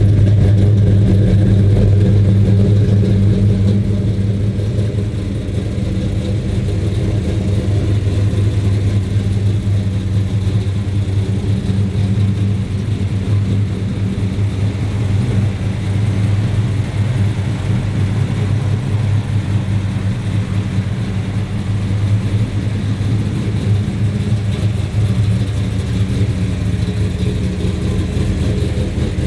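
Stroked 440 big-block V8 of a 1968 Dodge Charger R/T (493 cubic inches, solid roller cam) running at a steady idle, a loud, even drone that eases off slightly about four seconds in.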